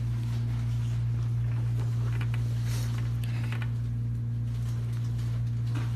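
A steady, loud low hum that does not change in pitch, with faint scattered rustles and knocks over it.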